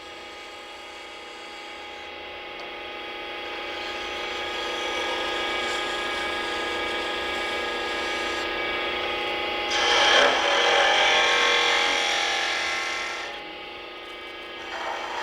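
Wood lathe running with a steady whine while a gouge takes a shear cut on the spinning wooden ball blank. The cutting noise builds, is loudest from about ten to thirteen seconds in, then eases off near the end.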